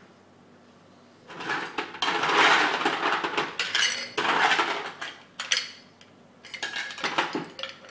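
Ice cubes being scooped and clattering into a glass, a long rattling burst starting about a second in, then shorter bursts near the end.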